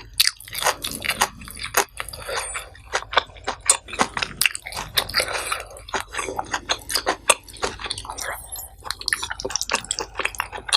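Close-miked chewing of a mouthful of nasi pecel, with many quick, irregular wet mouth clicks.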